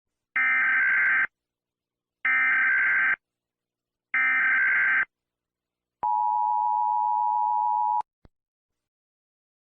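Emergency Alert System tones: three SAME header data bursts of about a second each, a second apart, then the two-tone attention signal held steady for about two seconds and cut off abruptly, followed by a faint click.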